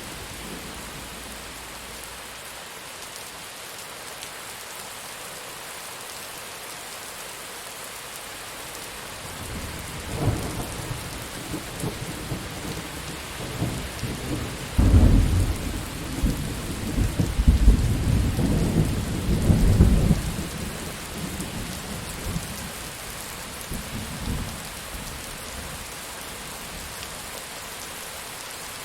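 Steady rain with a roll of thunder: a low rumble starts about ten seconds in, swells to its loudest in the middle, then dies away, leaving only the rain.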